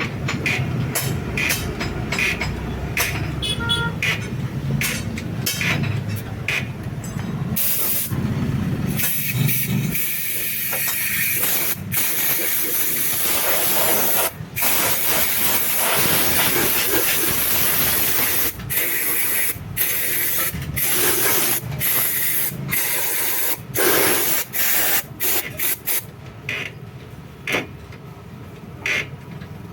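High-pressure cleaning jet hissing while cleaning out a motorcycle air filter box. It comes in short bursts at first, then runs as a long hiss with brief breaks, easing off near the end.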